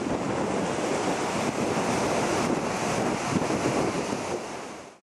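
Heavy surf on a rough sea, waves breaking and churning into white water, with wind buffeting the microphone. The sound is steady and cuts off abruptly near the end.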